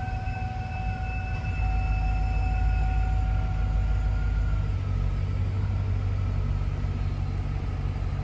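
Hummer H2's V8 engine idling steadily, with no valve-lifter ticking now that oil pressure has come up after a new oil-pickup strainer O-ring. A faint high whine rides on the idle and fades out within the first few seconds.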